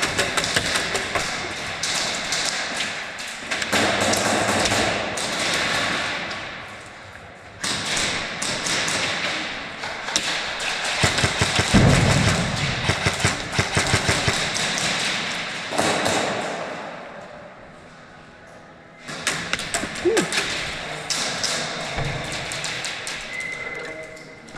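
Rapid clattering of airsoft gunfire and BBs striking walls and props during an indoor close-quarters game, in several runs of fast clicks with short lulls between them. There is a heavy thud about twelve seconds in.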